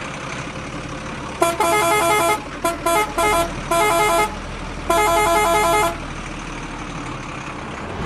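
Truck horn honking in a series of blasts: a one-second honk, a quick run of short toots, then two longer honks, over a low steady hum.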